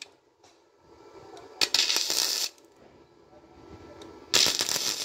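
Gasless flux-core MIG welder arc crackling in two short bursts of about a second each, the first about one and a half seconds in and the second near the end, as the rear of a steel accelerator-pedal arm is welded.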